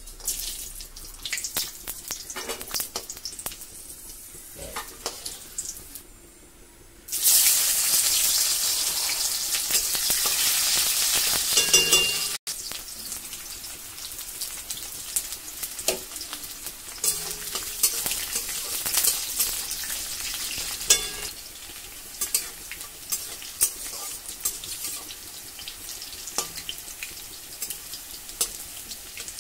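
Food frying in hot oil in a metal kadai: a light sizzle with spoon clicks and taps against the pan. About seven seconds in, the sizzle jumps to a loud burst as fresh pieces go into the oil, then drops back suddenly about twelve seconds in. The frying goes on more quietly after that, with the spoon clicking now and then.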